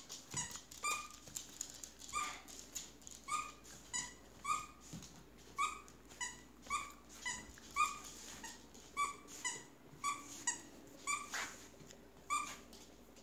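A small dog yapping in short, high-pitched yaps about twice a second, steady in rhythm, stopping shortly before the end.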